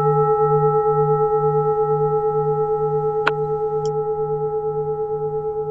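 A singing bowl ringing on after being struck, its tone slowly fading with a steady wavering pulse of about three beats a second.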